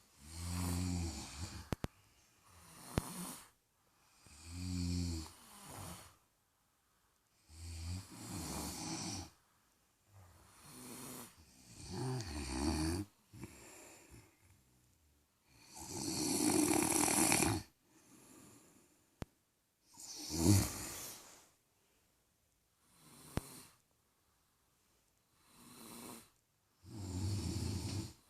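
Sleepers snoring: a rumbling, buzzing snore about every four seconds, alternating with breathy, hissy breaths. The longest and loudest breath comes about halfway through.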